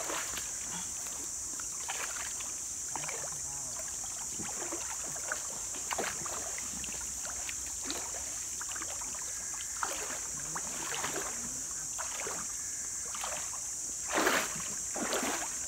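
Feet wading and splashing through a shallow, rocky stream, with water sloshing around legs in irregular steps, over a steady high-pitched hiss. There is a louder splash near the end.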